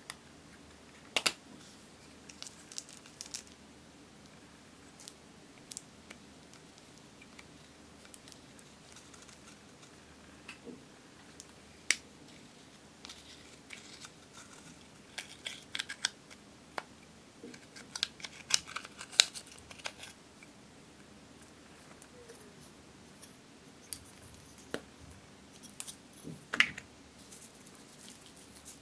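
Pressed powder blush scraped and broken out of a plastic makeup compact with a small metal tool: irregular sharp scratches, taps and clicks of the plastic case, busiest about halfway through.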